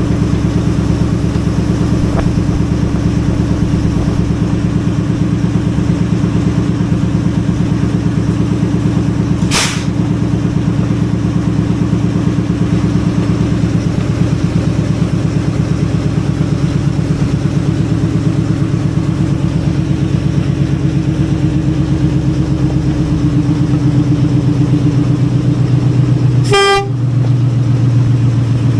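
Diesel locomotive engine running steadily, with a sharp knock about a third of the way through and a short horn toot near the end.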